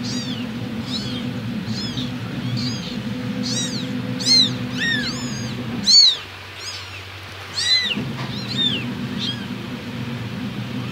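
Very young kittens mewing over and over in short, high-pitched cries, thickest and loudest in the middle. A steady low hum runs underneath and drops out for about two seconds in the middle.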